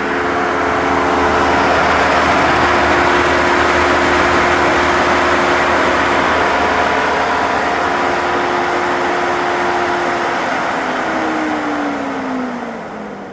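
Jeep Wrangler 4xe's cooling fans running loudly while the vehicle charges in 30 °C heat: a steady rushing whirr with a whine on top. This is the normal sound of the Jeep cooling itself while charging at high temperature. Near the end the whine drops in pitch and the noise fades as the fans wind down.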